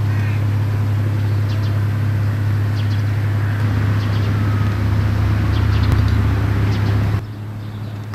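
An engine running steadily with a low, even hum, with birds chirping over it. The hum drops away sharply about seven seconds in.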